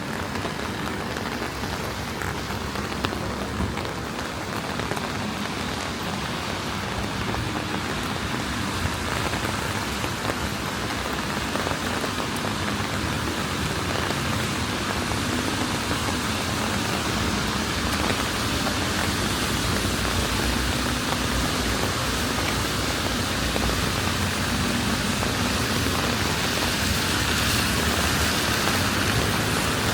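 Steady rain falling on wet streets, an even hiss that grows slightly louder over the stretch.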